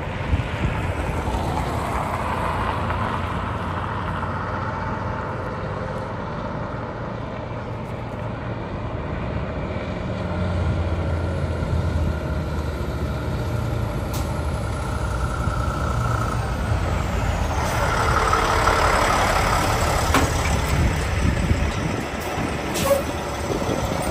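Loaded log truck's diesel engine rumbling as it comes up the road, growing louder as it draws near. A broad rushing hiss comes with it, loudest about three-quarters of the way through as the truck passes close by.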